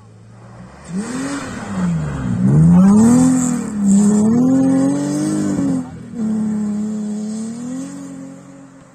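BMW rally car accelerating hard past the spectators, its engine revving up and down through gear changes and loudest as it goes by. About six seconds in the revs drop, then the engine runs steadier and fades as the car drives off.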